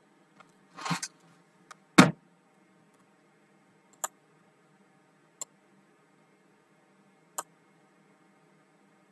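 Computer mouse clicking three times, single sharp clicks a second or two apart, while a PDF on screen is being adjusted. A brief rustle and a louder thump come before them, about two seconds in.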